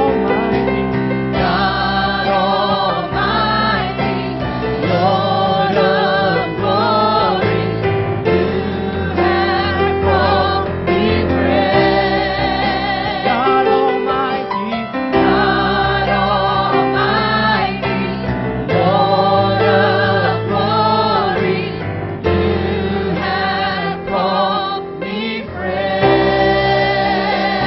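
Church praise team singing a gospel worship song in harmony, with a sustained instrumental accompaniment underneath.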